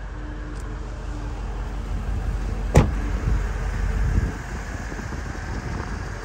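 Range Rover Sport SVR's supercharged 5.0 V8 idling as a steady low rumble. A car door is shut once, sharply, about three seconds in.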